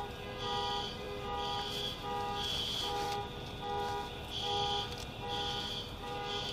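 Car alarm sounding: electronic beeps about half a second long, alternating between a lower and a higher tone about twice a second.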